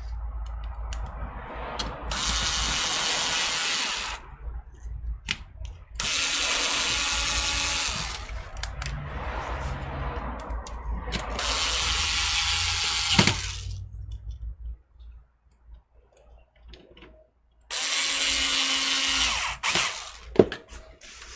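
Small handheld power tool run in four bursts of about two seconds each, with a hissing sound, and small clicks and handling noises between the bursts.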